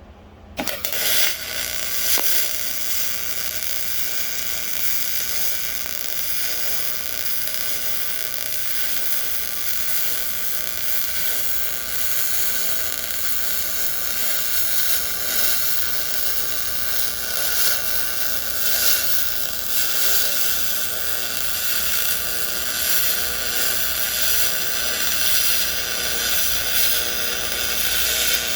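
A small high-speed motor whirring steadily with a hiss. It starts suddenly about half a second in and keeps running without a break.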